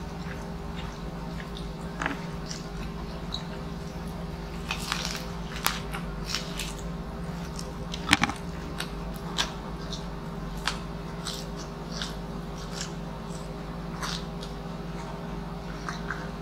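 Close-up eating sounds: crispy pata (deep-fried pork knuckle) being bitten and chewed, with scattered short crunches and smacks, the loudest about eight seconds in, over a steady low hum.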